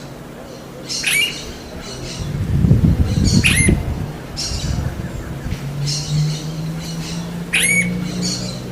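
Smooth-billed ani calling: three loud rising whining calls, about a second in, halfway through and near the end, with softer hoarse notes between them. A low rumble runs under the calls from about two to four seconds in.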